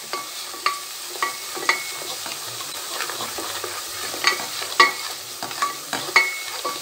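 A wooden spoon stirring a soffritto of chopped carrot and onion in oil in a stainless steel pot, knocking against the pot's side in irregular strokes about twice a second, each knock ringing briefly, over a steady sizzle from the pan.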